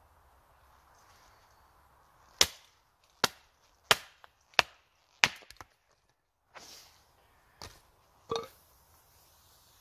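A hatchet chopping firewood on a chopping block. Five sharp chops come about two and a half seconds in, roughly one every 0.7 s, followed by a few lighter knocks as the pieces are set up again.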